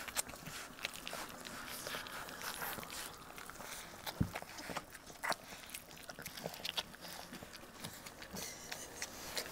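Bullmastiff puppies eating soft, mushy puppy food from a shared bowl close to the microphone: irregular wet smacking and chewing clicks, with a low thump about four seconds in.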